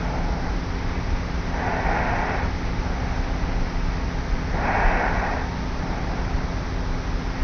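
A sleeping young woman lying on her back snoring lightly, two soft regular breaths about three seconds apart, picked up by a tape recorder on her pillow. A steady low hum and tape hiss run underneath.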